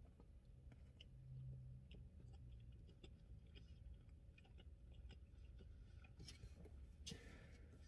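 Faint chewing of a mouthful of sandwich, with soft wet mouth clicks, then a brief rustle near the end.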